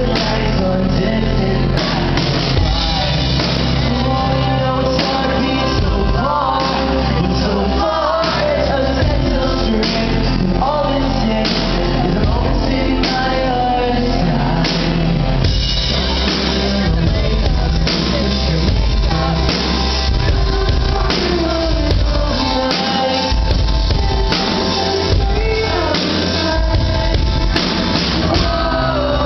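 Live band performance: a male lead voice singing over band accompaniment with a steady drum beat, in a large hall.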